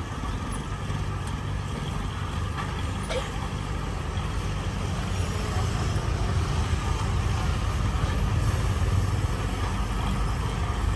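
Heavy diesel engine of construction machinery running steadily, a deep rumble that grows somewhat louder past the middle.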